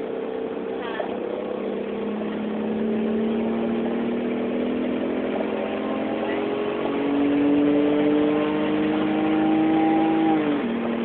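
Dodge Stealth's V6 engine pulling hard under acceleration uphill. Its pitch climbs slowly for about ten seconds, then drops suddenly near the end as the transmission shifts up; the owner calls this transmission bad.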